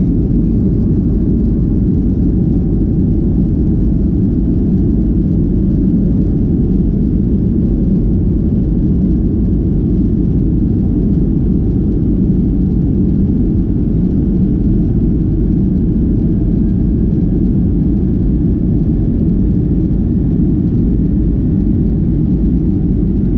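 Steady low rumble heard from inside the cabin of a Boeing 757 taxiing, its engines at low taxi power.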